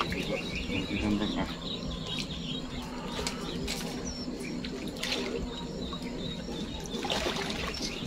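Lakeshore ambience: small birds chirping and water lapping gently at a rocky shore.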